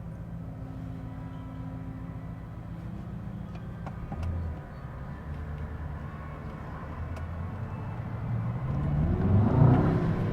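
Mercedes-AMG S63's twin-turbo V8 running steadily while driving, then the engine note rising in pitch and getting louder near the end as the car accelerates.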